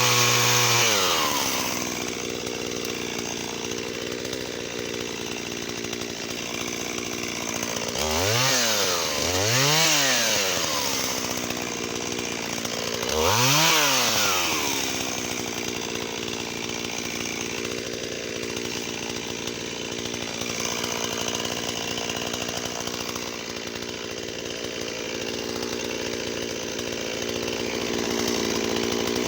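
Shindaiwa 488 two-stroke chainsaw dropping from high revs to idle, then given three short throttle blips about 8, 10 and 14 seconds in, each rising and falling back to a steady idle.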